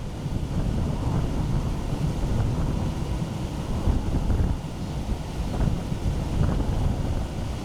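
Wind buffeting the microphone: a rough, gusty low rumble that swells and dips.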